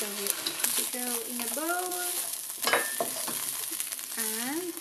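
Egg fried rice sizzling in a steel wok while a wooden spatula stirs and scrapes through it, with one sharp knock of the spatula on the wok about three seconds in. Short pitched, sliding tones come and go over the sizzle.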